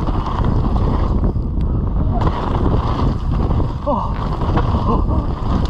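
Wind buffeting the microphone and mountain bike tyres rumbling over a packed-dirt trail during a fast downhill run, a steady loud rush throughout.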